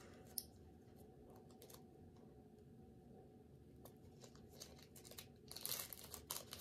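Quiet handling of press-on nail packaging: a sharp click about half a second in, a few faint ticks, then a brief crinkling rustle near the end.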